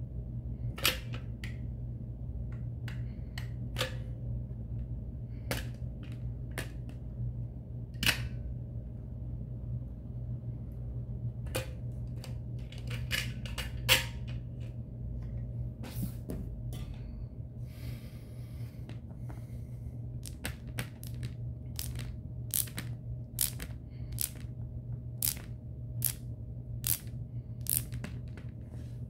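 Sharp mechanical clicks of a caulking gun's trigger and plunger ratcheting as construction adhesive is squeezed out, a few seconds apart at first and nearly once a second toward the end. A brief rasp comes about two-thirds through, and a steady low hum runs underneath.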